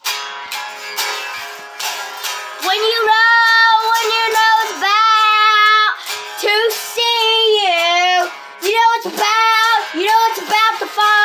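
A boy singing long held, slightly wavering notes while strumming an electric guitar. A few strums open, then the voice takes over in sustained phrases.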